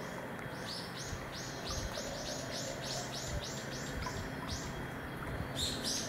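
A bird calling a fast series of short, high, repeated notes, about three a second, with a brief pause and then a quicker run near the end.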